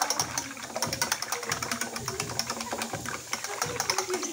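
Raw eggs being beaten by hand in a small stainless steel saucepan: a utensil clicks rapidly and steadily against the metal pan.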